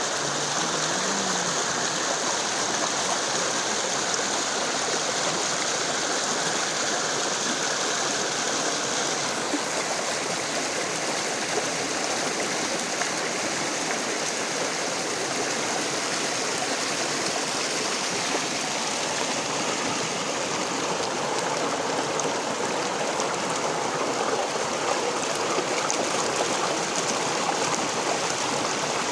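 Running water rushing steadily, like a stream or small cascade.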